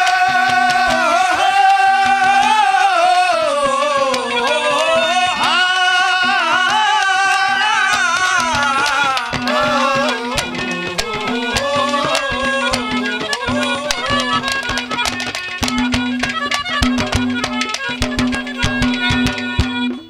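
Live Haryanvi folk music: an instrumental interlude with a bending, wavering lead melody over a steady low drone and fast hand-drum strokes. About halfway through the melody thins and the drumming grows busier.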